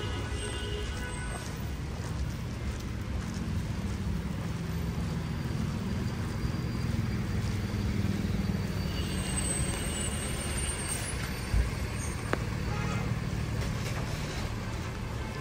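Street traffic on a wet road: a steady low engine rumble from passing and waiting vehicles, with tyres hissing on the wet pavement. A faint high squeal comes about ten seconds in, and a single sharp thump about eleven and a half seconds in.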